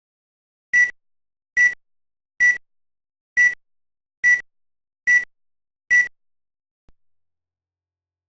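Seven short electronic beeps on one high tone, evenly spaced a little under a second apart, followed by a faint click and then silence.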